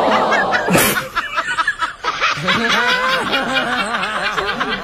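Laughter, ending in a quick, even run of ha-ha notes that bob up and down in pitch, with a brief sharp hiss about a second in.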